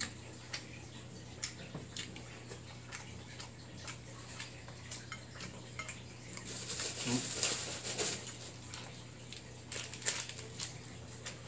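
Chopsticks tapping and scraping in a ceramic bowl of noodles, in light scattered clicks, with a plastic seaweed packet rustling for a couple of seconds about seven seconds in, over a steady low hum.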